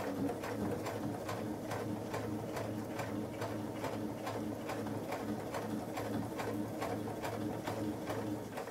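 Electric sewing machine stitching slowly through several thick layers of cotton and terry towel: a steady motor hum with the needle clicking about three times a second, kept slow so the thread won't break in the heavy layers.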